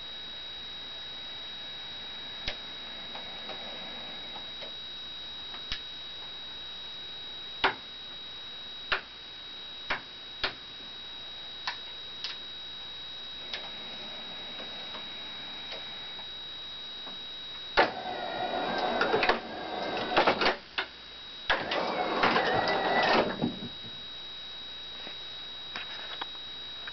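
Small electric motors and gearing of an HO scale model train lift and locomotive whirring in two bursts of about two to three seconds each, the pitch wavering, amid scattered sharp clicks and a steady high-pitched whine.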